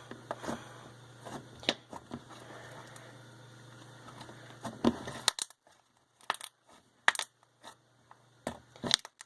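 Hands handling a tub of slime: scattered sharp clicks, taps and crackles, with a few louder clicks in the second half.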